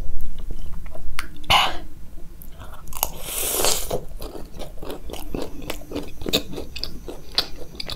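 Close-miked biting and chewing of a chutney-topped samosa: soft crunches and many small mouth clicks. The day-old pastry has gone slightly soggy and is not very crunchy.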